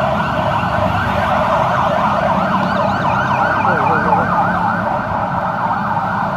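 Ambulance siren yelping: a fast rising-and-falling wail, about three sweeps a second, clearest in the middle, over the steady rumble of street traffic.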